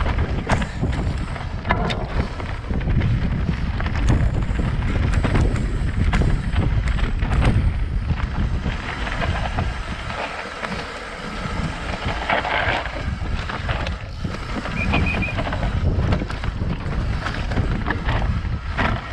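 Wind buffeting the action-camera microphone as a BH Lynx full-suspension mountain bike rides down a rocky singletrack, its tyres crunching over stones and the bike knocking and rattling over rocks.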